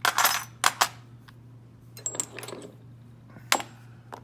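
Small metal lock tools clinking and clattering as they are handled and sorted by hand: a quick run of clicks at the start, a softer rustle about two seconds in, and one sharp click a little later.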